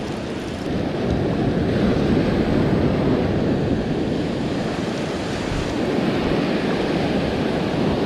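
Ocean surf breaking and washing up over the sand, with wind buffeting the microphone; the wash grows a little louder about a second in and then runs on steadily.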